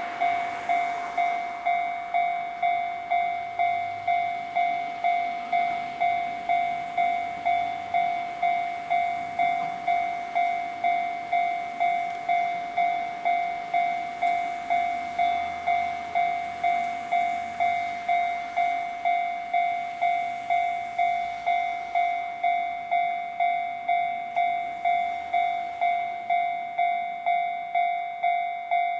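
Japanese railway level-crossing warning bell ringing its steady "kan-kan" just under twice a second, the signal that a train is approaching and the crossing is closing.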